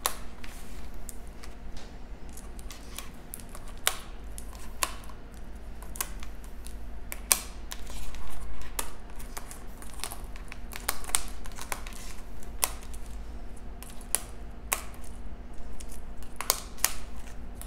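Plastic sample nail-tip holders clicking and tapping as they are picked up and snapped onto a magnetic nail chart board: irregular light clicks, a few a second, with a few louder snaps.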